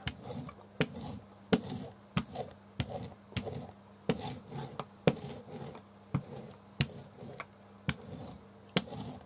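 A hand ink roller (brayer) rolled back and forth over an inked end-grain woodblock: a sticky hiss and rubbing with each stroke, and a sharp click most strokes, roughly once a second or a little faster.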